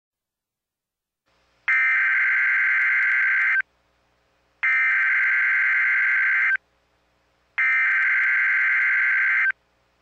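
Emergency Alert System SAME header: three bursts of rapid digital data tones, each about two seconds long with a one-second pause between them, starting about a second and a half in. The data bursts carry the alert's coded originator, event type, area and time, here for an administrative message.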